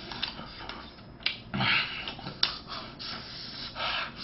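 A man eating: chewing a mouthful of rice and breathing hard through his nose, with two short snorting breaths and a couple of sharp clicks, such as chopsticks on the plastic lunchbox tray.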